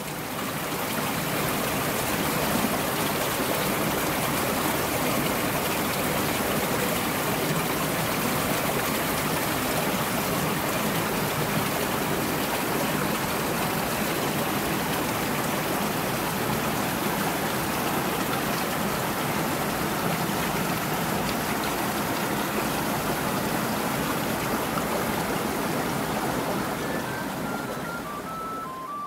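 A stream running among boulders, a steady rushing of water that swells up over the first second. Near the end it eases off and a flute-like melody comes in.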